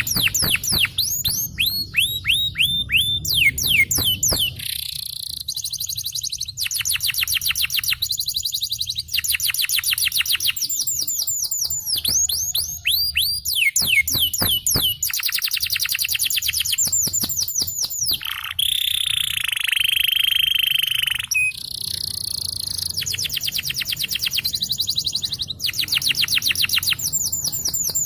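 A canary singing a long, unbroken song. It strings together runs of fast repeated downward-sweeping whistles and rapid rolling trills, with a harsher buzzy phrase about two-thirds of the way through.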